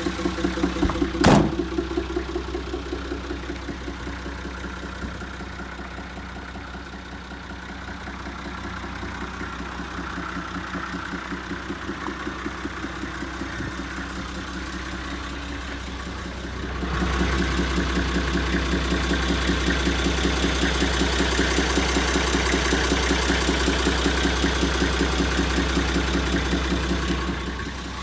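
Nissan TD42 inline-six diesel engine idling steadily with an even pulse. There is a sharp knock about a second in, and the engine is louder for about ten seconds in the second half.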